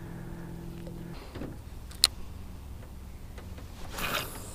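Bow-mount electric trolling motor humming, cutting off about a second in. Then a single sharp click, and a brief swish near the end.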